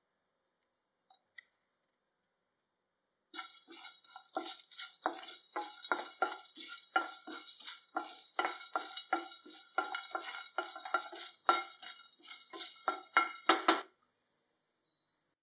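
Wooden spatula stirring whole spices as they dry-roast in a nonstick pan: a quick run of scraping strokes, two or three a second, starting a few seconds in and stopping shortly before the end.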